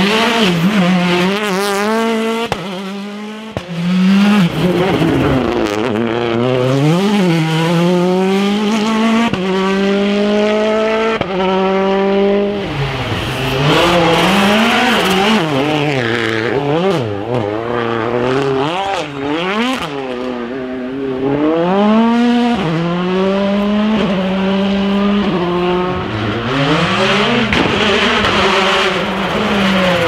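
World Rally Cars of 2016, Hyundai i20 WRC and Volkswagen Polo R WRC, revving hard through their 1.6-litre turbocharged four-cylinder engines, in a string of separate passes. The engine note repeatedly climbs and drops with the gear changes and braking.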